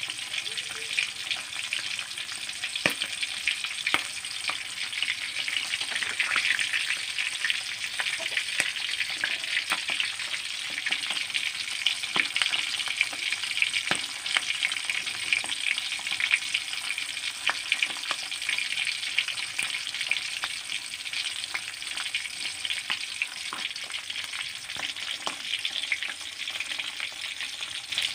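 Milkfish frying in hot oil in a steel wok: a steady sizzle with frequent sharp crackles and pops, the popping of moisture still cooking out of the fish before it dries and crisps.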